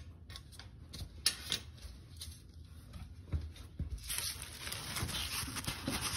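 Engine oil dribbling from the drain-plug hole into a plastic drain bucket, heard as irregular drips and taps. About four seconds in, a louder rustling begins as an absorbent puppy pad is handled right at the microphone.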